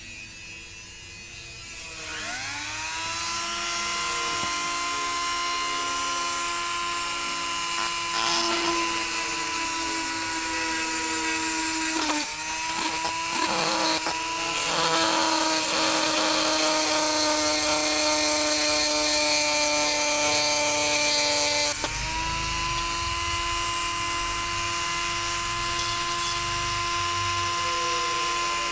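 NRT-PRO 903HD mini grinder spinning up with a rising whine about two seconds in, then running at steady high speed while its small bur engraves into a surface. The pitch dips briefly twice as the bit is loaded.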